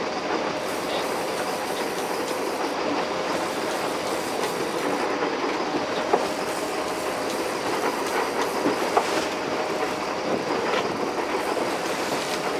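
Steady running noise of a sport-fishing boat at sea, engine hum mixed with water and wind, with a faint steady drone and a couple of sharp clicks or knocks partway through.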